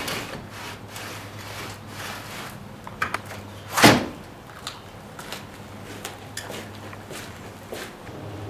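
Handling noises, as of a room being gone through: a run of small knocks and clicks, with one louder, longer thud about four seconds in, over a steady low hum.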